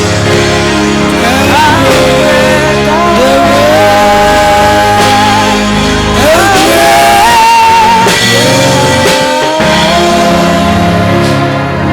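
Church worship music: a lead melody line that slides into long held notes, over a steady band accompaniment.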